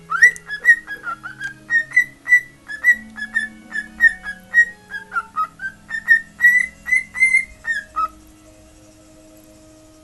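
Cockatiel whistling a quick run of short notes, about three a second, mostly at one pitch with a few dipping lower, ending on a falling note about eight seconds in. A radio plays music faintly underneath.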